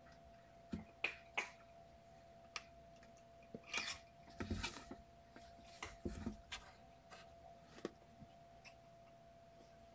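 Faint scattered clicks, scratches and rustles of a kitten's claws on the nest box wall and blanket as it climbs down into the box, busiest in the middle, over a faint steady hum.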